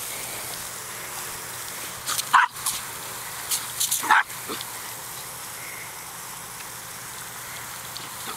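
A small dog barks twice, about two and four seconds in, over the steady hiss of a field sprinkler's water jet.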